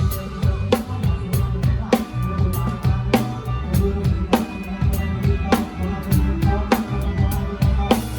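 Live drum kit playing a steady beat within a full band, recorded close to the drums: a snare hit about every second and a quarter over busy bass drum and a heavy low end.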